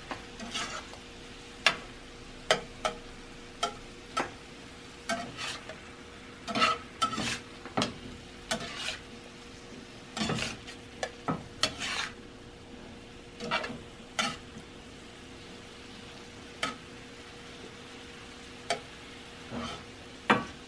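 A metal spatula scraping and clacking against a frying pan in short, irregular strokes as shrimp are stirred, over a gentle sizzle of the shrimp frying in sauce on medium-low heat. A steady low hum runs underneath.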